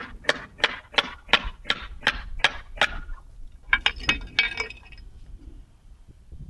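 Metal-on-metal tapping: about nine evenly spaced clinking strikes, roughly three a second, then a quick flurry of clinks about a second later.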